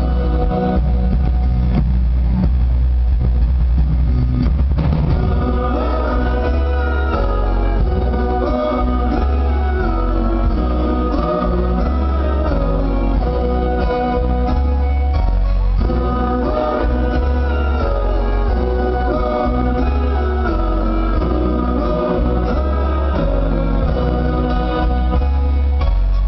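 Live band performing: several voices singing together over keyboards, guitars and a heavy bass. Recorded from the audience in a concert hall, so it sounds dull in the highs and full of room sound.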